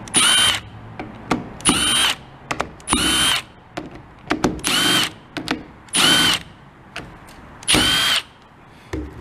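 Milwaukee cordless driver spinning out aluminium valve-body bolts in six short bursts of about half a second each, its motor whine rising and dropping with every bolt, with small metal clicks in between.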